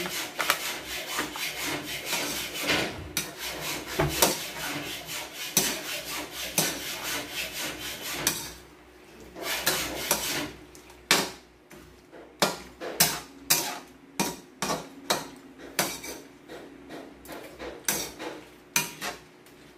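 Metal turner scraping and knocking against an aluminium wok while shrimp are stir-fried. Busy, continuous scraping for the first several seconds, then after a short lull a string of separate strokes, about two a second.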